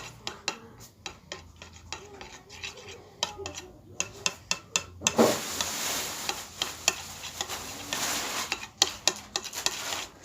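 A spoon stirring a mixture in a bowl, with many sharp clinks and taps against the bowl. From about five seconds in until near the end a louder, even scratchy noise joins it.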